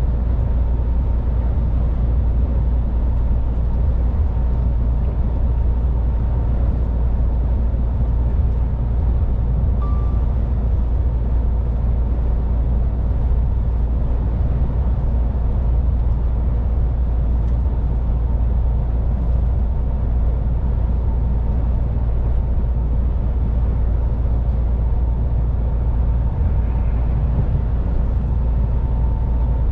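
MAN heavy truck driving at a steady motorway speed: an unbroken deep engine and road drone, with no change in pace.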